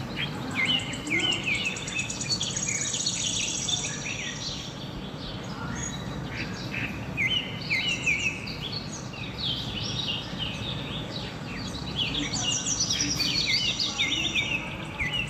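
Several birds chirping and singing in quick, overlapping short notes, with a high, fast trill coming in for a few seconds at a time over a steady outdoor background hiss.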